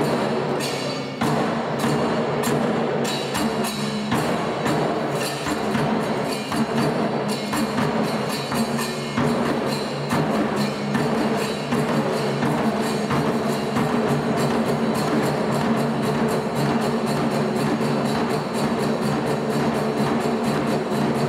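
Nanbu kagura accompaniment: a large kagura drum struck with sticks, with sharp clicking strokes over sustained ringing tones. The strokes come about twice a second at first and grow denser after about twelve seconds.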